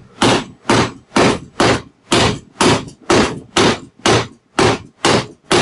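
Steel hammer striking the flywheel nut on a Craftsman 5.5 hp L-head mower engine, about a dozen sharp metal-on-metal blows at a steady two a second, while the flywheel is lifted by hand. The blows are meant to shock the flywheel loose from the crankshaft so it pops off.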